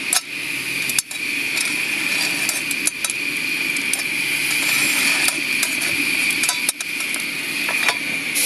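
Lumps of coal clinking and scraping on a small steel firing shovel as they are fed into the firebox of a 5-inch gauge live-steam Royal Scot, a few sharp clinks standing out. Under it a steady hiss of steam from the locomotive runs throughout.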